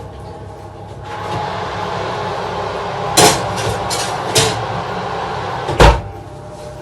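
A steady whirring noise with two sharp clacks, then a heavy bang as an oven door is shut, after which the whirr drops away.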